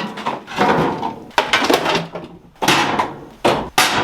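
Scraping, creaking and knocking as an old lawn mower is dragged and shifted, with several short sharp bangs in the second half.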